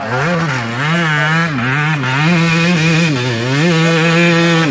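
Dirt bike engine revving up and down over and over, roughly once a second, as it is ridden on a steep rutted dirt hill track.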